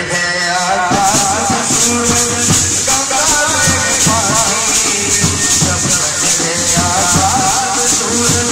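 Indian brass band playing: trumpets carry a wavering melody over drum beats and a steady shaken rattle, the full band coming in about a second in.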